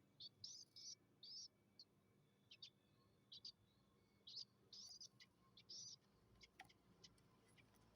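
Young yellow-vented bulbul (trucukan) chick calling: short, high chirps in irregular runs of two or three notes, with a few fainter ticks near the end.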